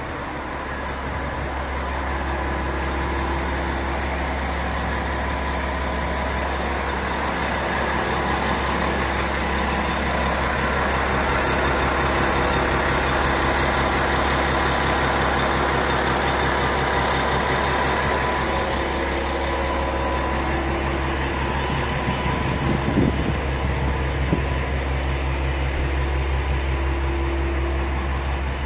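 Underfloor diesel engine of a red railcar idling steadily at the platform, a low, even hum. Near the end there are two short knocks.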